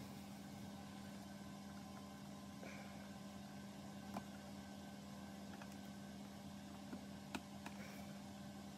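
Steady low electrical hum with a few faint clicks of a hobby knife blade cutting into a plastic model hull, one about four seconds in and another near the end.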